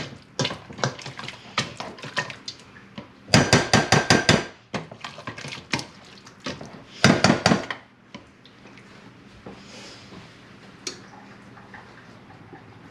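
Metal potato masher clanking against a stainless steel pot as potatoes are mashed by hand with butter and cream cheese. Scattered knocks, with two runs of rapid clattering about three and seven seconds in; it stops about eight seconds in.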